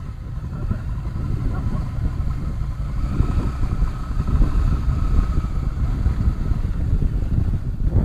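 Motorcycle engine running at low road speed, heard from the rider's seat, with wind rumbling on the microphone.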